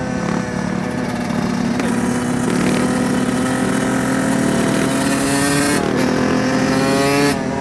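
Dirt bike engine running under throttle while being ridden, a steady note whose pitch climbs slowly and breaks off briefly near six seconds and again near the end, as at a gear change or throttle lift.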